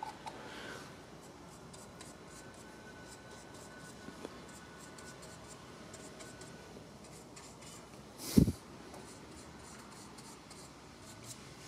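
Faint rubbing and light scratching of gloved fingers spreading anti-seize compound onto the bare metal shoe contact points of a Jeep Wrangler TJ's drum brake backing plate. A single short thump about eight seconds in.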